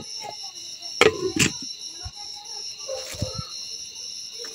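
Crickets trilling steadily, with a few short knocks and clatters of things being handled about a second in and again a little after three seconds.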